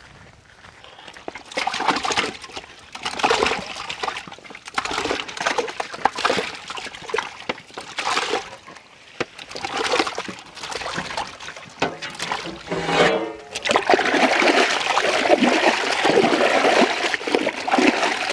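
Water splashing and sloshing in a large aluminium pot as raw chicken pieces are tipped in and washed by hand. The splashes come in irregular bursts at first and grow louder and continuous in the last few seconds.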